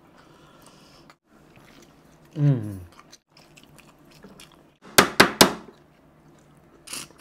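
Hand-eating at a table of steel plates: faint handling and eating noise, a short low falling hum about two and a half seconds in, then three sharp clinks of tableware in quick succession about five seconds in, the loudest sounds.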